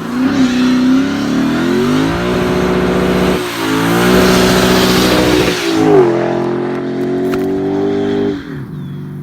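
A car engine accelerating hard, its pitch climbing, with upshifts about 3.5 and 6 seconds in, then easing off to a lower steady note near the end.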